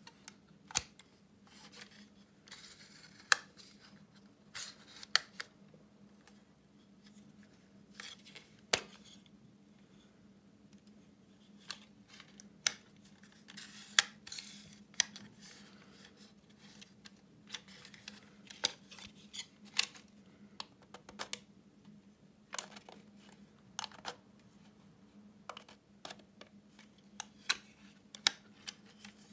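Vintage Daimon railway signal hand lamp being handled: its sheet-metal case and fittings give irregular sharp clicks and clacks, with a few brief scrapes, as its colour-filter slide is worked.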